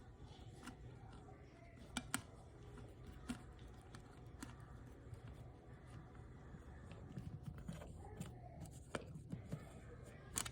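A Phillips screwdriver turning a wire terminal screw on a fire alarm pull station: faint scattered clicks and scrapes of metal and plastic, a few sharper ticks a couple of seconds in.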